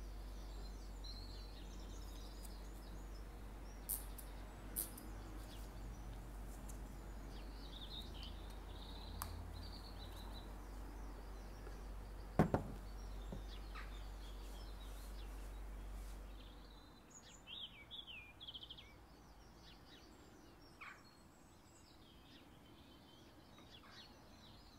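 Faint background noise with a steady low hum that stops about two-thirds of the way through, and birds chirping faintly now and then. A few soft clicks and one louder knock about halfway through come from the glass perfume bottle and its cardboard box being handled.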